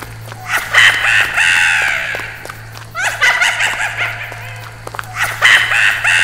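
Sound effect of a small child giggling, the same laugh heard three times about two and a half seconds apart, each falling in pitch, over a low steady hum.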